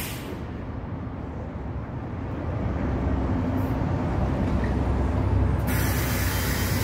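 Low rumble of city street traffic, a heavy vehicle's engine getting louder over the first few seconds and then running steadily. A loud hiss comes in near the end.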